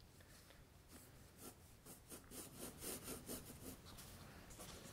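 Faint graphite pencil strokes on drawing paper: a run of short strokes, about three a second, in the middle, then quieter as the pencil lifts.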